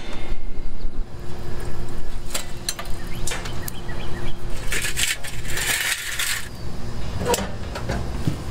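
Charcoal clinking and rattling in a metal chimney starter as it is handled: scattered sharp clinks, with a longer, denser rattle near the middle.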